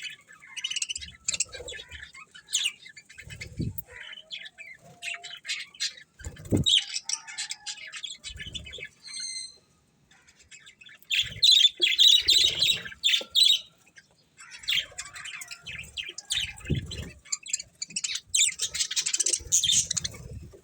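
Budgerigars chirping and chattering in quick, high, overlapping bursts, with two short lulls partway through. A few soft low thuds are mixed in.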